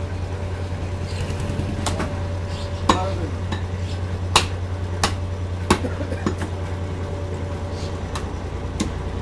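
Butcher's knife knocking on a wooden tree-stump chopping block while cutting water buffalo meat: sharp knocks at irregular intervals, about six in all, the loudest about three and four and a half seconds in. A steady low hum runs underneath.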